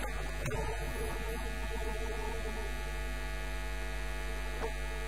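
Steady electrical mains hum, a low drone with a stack of even overtones, with a short click about half a second in and another near the end.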